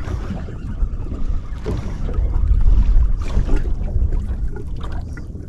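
Wind buffeting the microphone in a strong, uneven low rumble on a small boat at sea, with water sounds around the hull.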